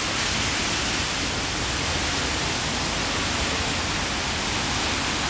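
Steady, even hiss of background noise at a constant level, with no distinct events.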